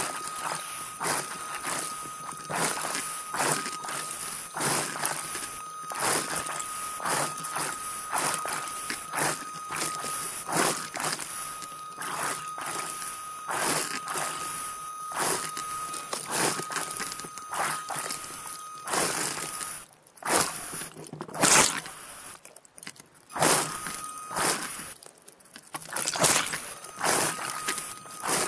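Underwater recording during a diver-propulsion-vehicle cave dive: a steady high whine, most likely the scooter's motor and propeller, runs under dense irregular clicking and crackling. The whine cuts out for a few seconds about twenty seconds in, then returns in short stretches near the end.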